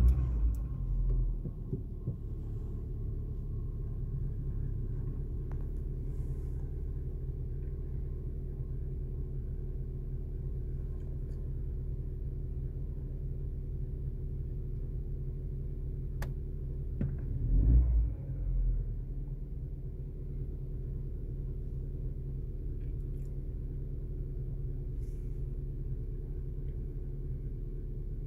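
Opel Corsa D engine idling just after a cold start at about −4 °C, heard from inside the cabin. It is loud for the first second or so after catching, then settles into a steady idle. About 18 seconds in its speed briefly rises and falls once.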